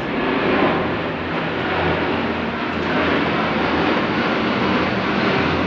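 Steady, loud engine-like rumble of noise from outside, with a low hum under it.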